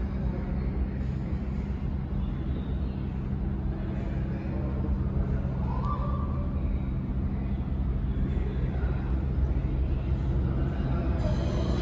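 New York City subway train approaching the station through the tunnel: a steady low rumble that grows slowly louder as it nears.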